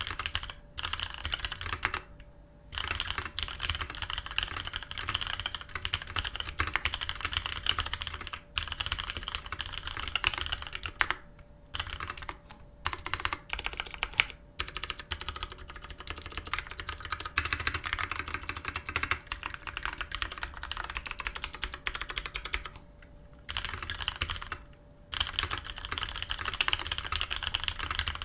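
Fast, continuous typing on a Matrix Abel custom mechanical keyboard with Cherry MX Brown tactile switches on an anodized aluminium plate, a rapid run of keystroke clicks broken by a few brief pauses.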